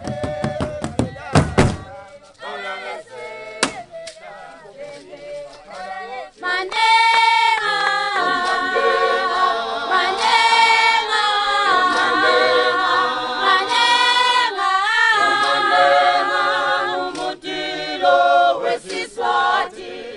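A group of voices singing a Swazi traditional song together, with sharp beats in the first two seconds before the singing swells in at about six seconds and carries on steadily.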